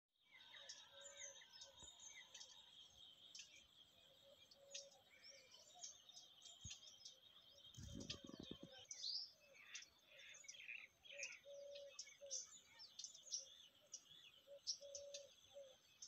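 Faint dawn chorus of many birds chirping and calling, with a steady high trill underneath and a lower note repeated several times; a brief crackle about halfway through.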